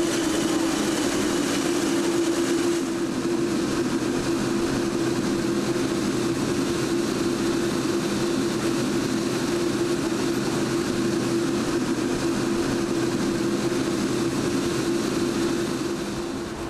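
Boeing 787's GEnx turbofan engines running at taxi power: a steady jet whine with a constant low hum beneath it. The sound fades a little near the end.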